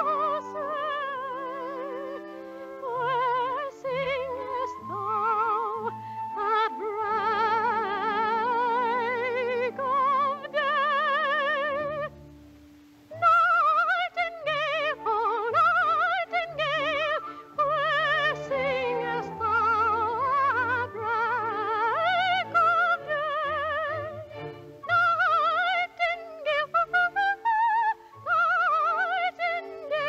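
Operatic soprano singing with a wide vibrato over orchestral accompaniment. She sings long held notes and sliding runs, breaks off briefly about twelve seconds in, and sings quick detached high notes near the end.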